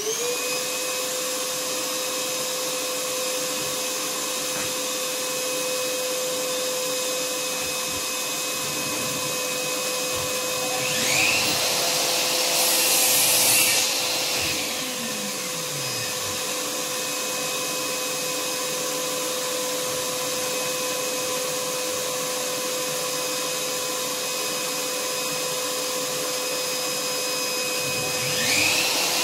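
Vacuum cleaner with a suction hose, its motor just switched on and settling to a steady whine. About eleven seconds in, and again near the end, the rush of air grows louder for a few seconds as the nozzle is worked over the bench.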